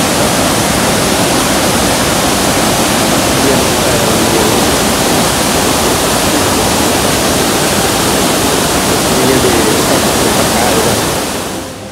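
Loud, steady rush of water pouring over the tiered cascades of Kuang Si Falls, fading out near the end.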